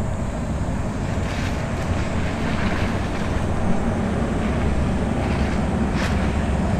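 Jetfoil high-speed jet boat running foilborne past: a steady low rumble from its gas turbines and water jets, mixed with wind buffeting the microphone, growing slightly louder toward the end.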